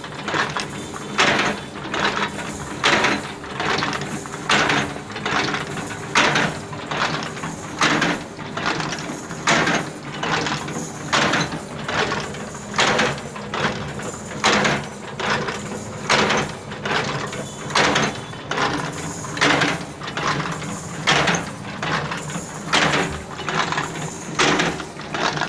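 Wire-bending machine for tea strainers running, feeding and bending steel wire with a regular cycle of metal clanking: a loud clank about every second and a half to two seconds, with lighter clicks and rattles between.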